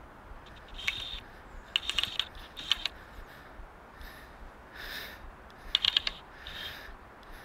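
Fly reel's click-and-pawl drag ticking in short bursts of rapid clicks, about three bursts, as line is worked against a large, still-fighting salmon on a bent rod.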